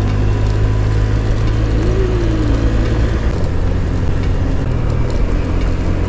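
Motor scooter riding along at a steady pace: its small engine runs evenly under wind rushing over the microphone.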